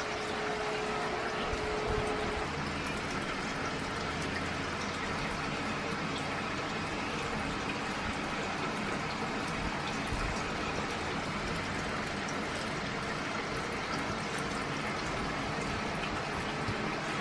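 Steady rushing noise of an electric tower fan running.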